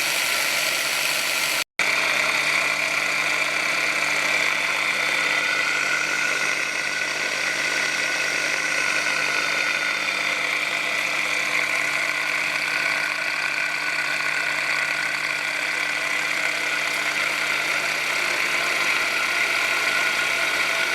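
Suhner grinding machine running steadily at speed, a constant high motor whine over a broad hiss, with a momentary break in the sound under two seconds in.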